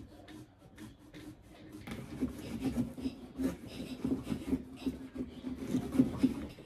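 A blade sawing back and forth through a pumpkin's rind and flesh, a rubbing, squeaky scrape. It is faint at first, then settles into steady strokes, about three a second, from about two seconds in.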